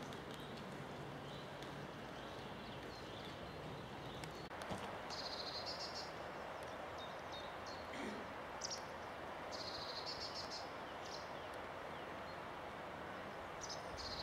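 A songbird sings three short trilled phrases about four seconds apart over a steady outdoor hiss, with a few fainter chirps before them.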